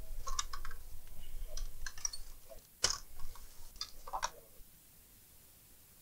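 Handling noise: a run of clicks and light knocks as an opened all-in-one computer is moved and set down on the workbench, with one sharper knock about three seconds in. It stops after about four and a half seconds.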